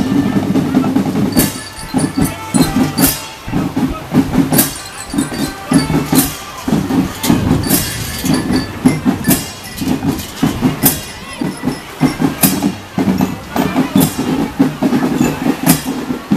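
A marching drum band playing: snare and tenor drums beat a steady march rhythm, with a loud accented crash about every second and a half, while marching keyboard instruments play the tune.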